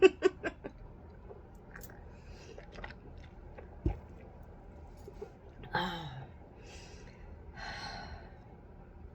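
A person drinking coffee: a quick run of clicks at the start, a single low knock about four seconds in, then a short voiced sigh and two breathy exhalations.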